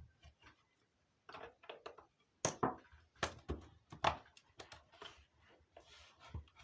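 Irregular clicks and knocks of a galvanometer's flimsy housing and parts being handled while it is taken apart, the sharpest knocks about two and a half, three and four seconds in.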